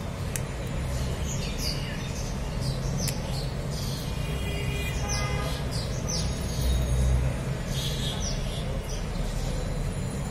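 Small birds chirping in short, quick calls scattered throughout, over a steady low rumble that swells briefly about seven seconds in.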